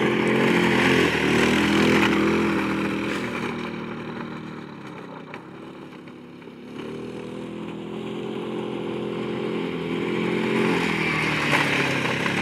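Keeway 150 quad bike's single-cylinder engine revving as it rides past, fading as it moves away, then growing louder again as it comes back close near the end.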